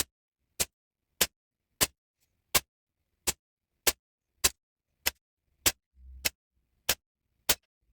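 VFC T91 gas-blowback airsoft rifle fired shot by shot, about thirteen sharp evenly spaced reports roughly 0.6 s apart. The rifle's nozzle flow valve has been modified, and it is being shot through a chronograph at about 160 m/s.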